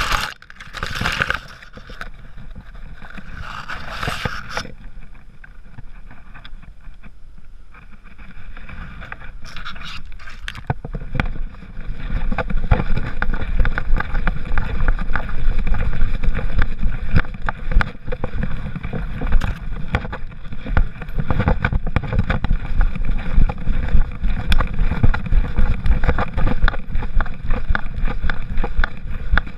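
Leaves and branches brushing against a GoPro camera mounted on a walking dog's back, rustling in a few loud bursts over the first few seconds. From about ten seconds in, a steady low rumble with rapid knocking as the camera is jostled by the dog's steps, with wind on the microphone.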